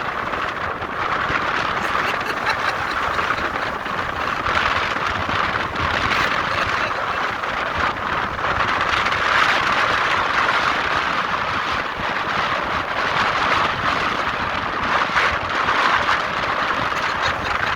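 Strong wind blowing across the microphone: a continuous rushing noise with a low rumble, swelling and easing in gusts.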